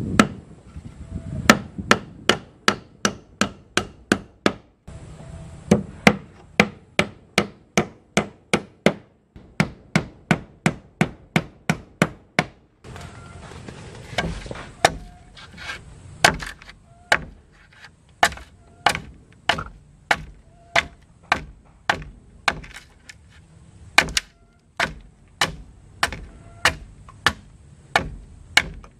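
Hand-tool strikes on wood: a claw hammer driving nails into wooden wall boards, then a machete chopping along the edge of a wooden board. Sharp blows in a steady rhythm of roughly two a second.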